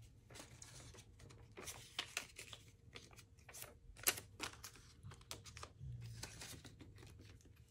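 Paper banknotes being handled and stuffed into cash envelopes in a budget binder: faint rustling and crinkling with many small scattered clicks.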